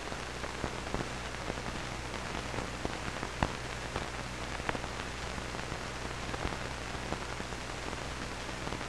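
Open air-to-ground radio channel between transmissions: a steady hiss with scattered sharp crackles over a low steady hum.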